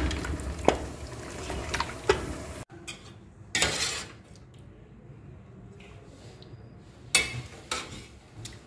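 A wooden spatula knocks and scrapes against a metal pot of thick curry while stirring, with a low rumble underneath. After a sudden cut the sound drops to quiet, broken by a few sharp clinks of dishes.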